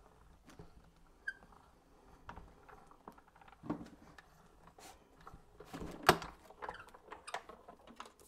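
Hand-cranked Amaze die-cutting machine rolling plates through, giving off irregular clicks and knocks, the loudest about six seconds in. The clicking is normal for the machine and does no harm.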